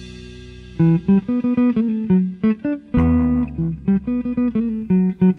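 Background music: a held chord fades out, then about a second in a plucked guitar starts picking a melody, and a low bass line joins about halfway through.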